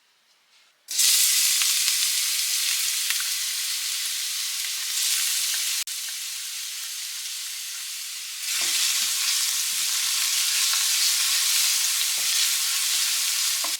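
Diced onions frying in hot cooking oil in a pan: a loud sizzle starts suddenly about a second in. It grows louder again in the second half, with a utensil stirring and knocking in the pan.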